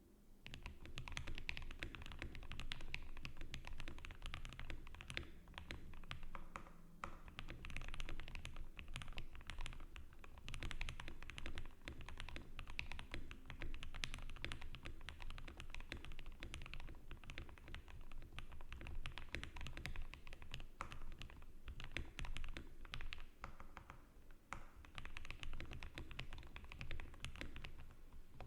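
Fast continuous typing on a KBD67 Lite R3 custom mechanical keyboard with lubed Gateron Black Ink linear switches, TX 62g springs and HK Gaming keycaps: a dense, unbroken run of keystrokes with only a few brief lulls.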